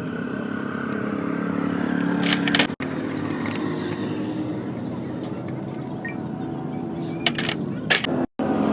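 Motorcycle engine running steadily at idle, the engine noise the owner treats as a problem, with a few sharp clicks and rattles over it.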